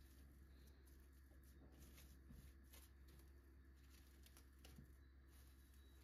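Faint crinkling and rustling of plastic cling film as hands roll and wrap a log of minced meat, with a few soft scattered clicks over a low room hum.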